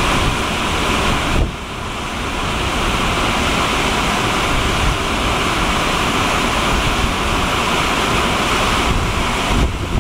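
Steady roar of a waterfall and whitewater rushing through a rock gorge, with wind buffeting the microphone in a low, uneven rumble.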